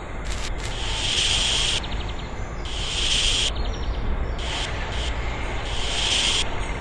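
Hand tool scraped in repeated strokes along a freshly sand-cast metal sabre blade, cleaning moulding sand off it. Each stroke lasts up to about a second, with short pauses between.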